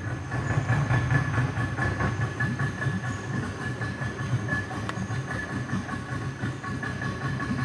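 Outboard motor of a small fibreglass boat running steadily, a constant low drone with a steady whine on top.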